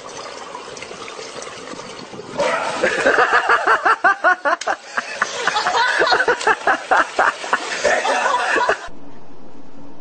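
A person laughing hard in quick repeated bursts, starting about two seconds in and cutting off abruptly near the end, where a steady low hum takes over.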